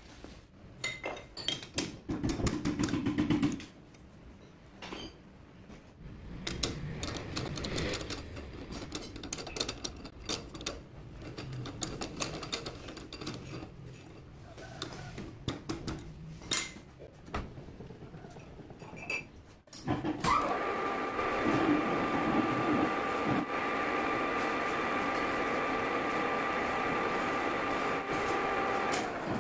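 Metal parts and a lathe chuck being handled, with scattered clicks and clanks. About two-thirds of the way through, the metal lathe starts and runs with a steady whine while a drill bit in the tailstock bores into the spinning workpiece.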